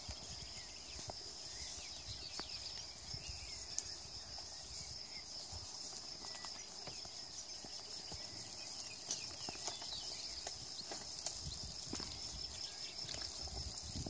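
Goats grazing and browsing: scattered small clicks, rustles and ticks from hooves, twigs and cropped grass, over a steady high-pitched hum in the background.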